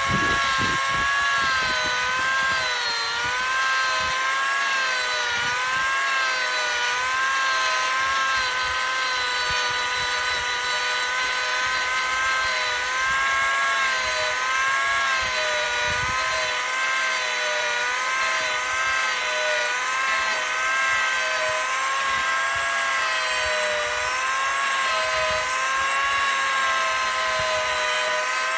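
Angle grinder fitted with a Manpa multi-cutter carving disc, running continuously while cutting into a wooden root; its motor whine wavers up and down in pitch as the load changes.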